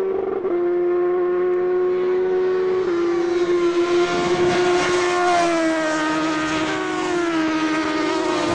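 Superbike racing motorcycle engines held at high revs. The engine note drops in pitch in steps several times, and a bike passes close about four seconds in.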